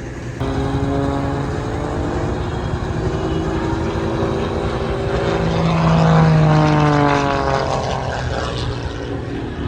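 Propeller airplane's piston engine passing close by, growing louder to a peak about six seconds in, then dropping in pitch as it goes away.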